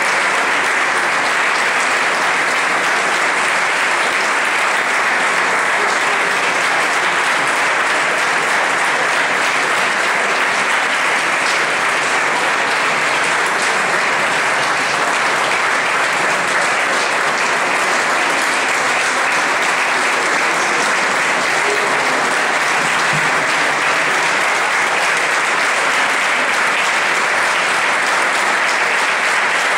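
Audience applauding in a stone church: a dense, steady patter of clapping that holds at the same level throughout.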